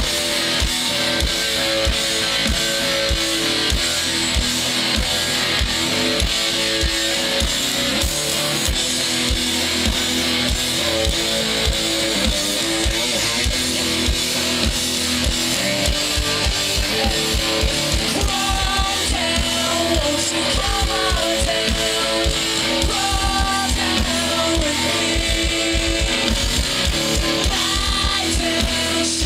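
Live rock band playing: strummed electric guitars over a drum kit with a steady kick-drum beat, loud and continuous.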